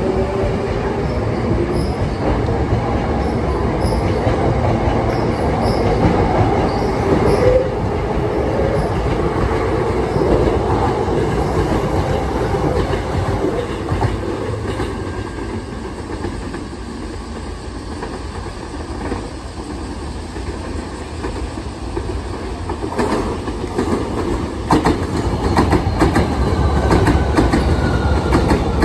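Hankyu 8300-series and 7300-series electric train pulling away, its traction motors whining and rising in pitch over the first few seconds. Later, the cars run close by with wheels clacking over the rail joints.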